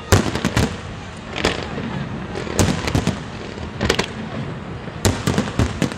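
Aerial fireworks bursting: a rapid, irregular series of sharp bangs, several coming in quick clusters.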